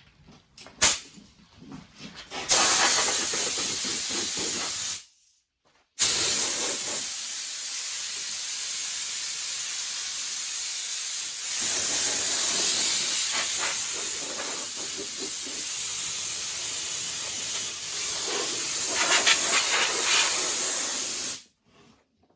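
Compressed air hissing from an air-nozzle blow gun, blowing dust off a sandblasted car body before paint. It runs in two blasts: a short one of about two and a half seconds after a few light knocks, then after a second's break a steady blast of about fifteen seconds that cuts off suddenly.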